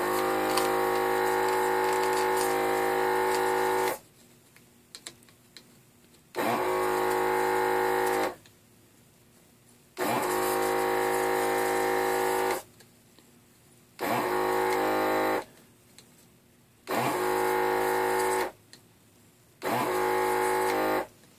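Vacuum desoldering tool's pump running in six bursts of two to four seconds each, switching on and off abruptly as the trigger is pressed and released, sucking solder off a surface-mount board through the tip. The short pauses between bursts let the tip reheat.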